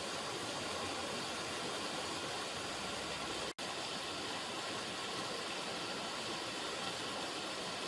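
River water running, a steady rushing with no let-up except a split-second dropout about three and a half seconds in.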